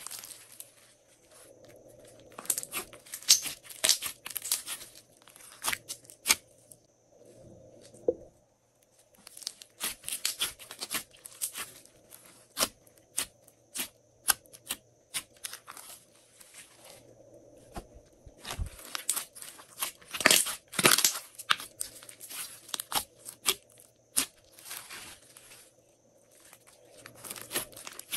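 Hands kneading, pressing and stretching glossy slime: sticky crackling and popping clicks in irregular bursts as the slime is squeezed, folded and pulled apart.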